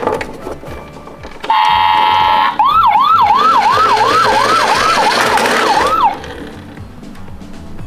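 A toy ambulance's electronic siren sounds a steady beep for about a second. It then switches to a quick rising yelp, repeated about two and a half times a second for three and a half seconds, and stops.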